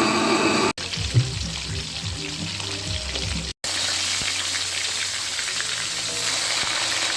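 Chicken frying in hot oil: a steady sizzle, broken by two abrupt cuts in the first few seconds, with a brief pitched sound in the opening moment.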